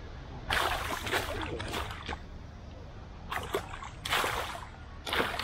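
Water splashing in about five short bursts as a carp thrashes in a landing net at the surface.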